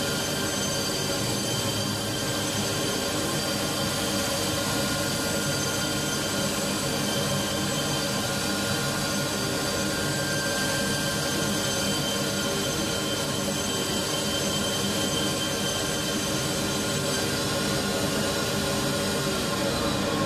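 CNC milling machine cutting an insole blank, its spindle running with the dust extraction on: a constant rushing noise with several steady whining tones held over it.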